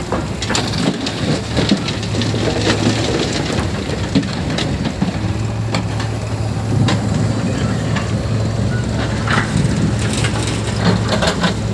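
Heavy diesel machinery engine running steadily, with irregular crunching and crackling over it.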